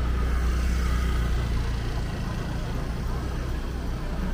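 A motor vehicle's engine passing close by, its low rumble loudest for about the first two seconds and then easing off, over general street noise.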